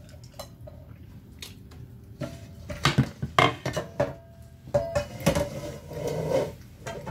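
A glass pot lid with a metal rim clattering and clinking against a pan as it is handled and set back on, a run of sharp knocks and clinks with brief ringing.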